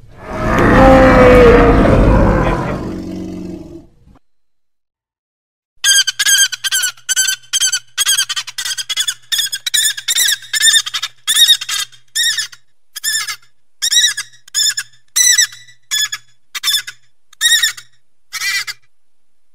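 Cartoon creature sound effects: a loud, harsh animal call that fades out about four seconds in, then, after a short pause, a long run of quick, high-pitched chirping squeaks, about two a second at first and spacing out toward the end.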